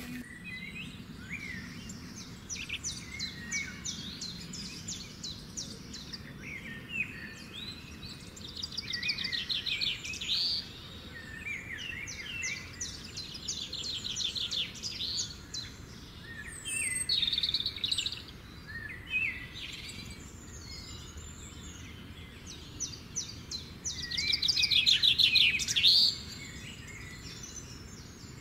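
Birds singing: bursts of rapid high trills and chirps, coming every few seconds, the loudest burst a little before the end.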